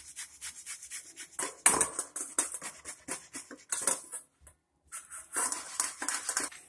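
Boiled potato being grated on a stainless-steel hand grater over a steel bowl: quick rhythmic rasping strokes, several a second, with a short pause about four seconds in before more strokes.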